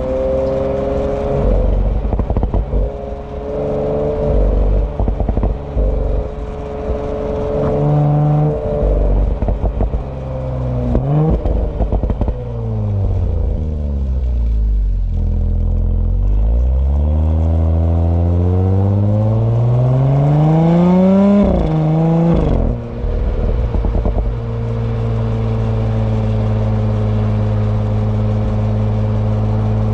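Exhaust of a 2018 Audi B9 S4 with its turbocharged V6, uneven with scattered crackles for the first ten seconds or so. The engine note then falls as the car slows, climbs steadily under acceleration for about five seconds, drops off suddenly about two-thirds of the way through, and settles into a steady cruise.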